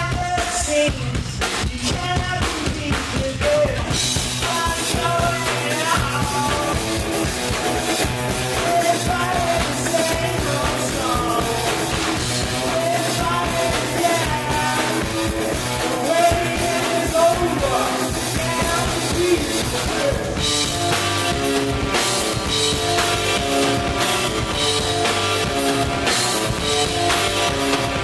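Rock band playing live: drum kit, electric guitar and bass guitar, with a man singing through much of it.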